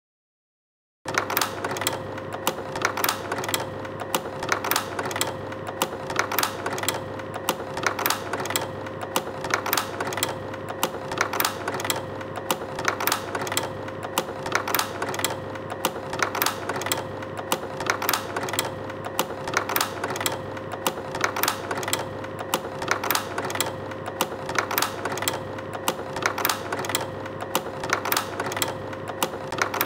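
Slide projector running: a steady motor hum under a quick, continuous clatter of clicks from the slide-changing mechanism, starting about a second in.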